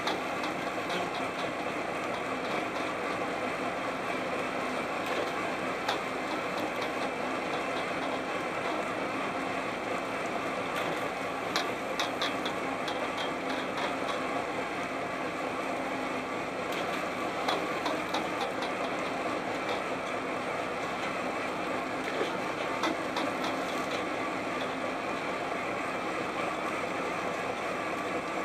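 Steady running of a purse seiner's engine and deck machinery, with short bursts of light rattling or clicking a few times.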